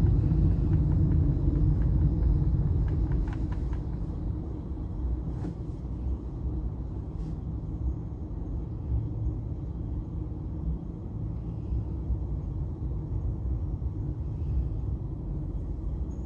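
Steady low rumble of a car being driven, engine and tyre noise, easing a little over the first few seconds and then holding steady.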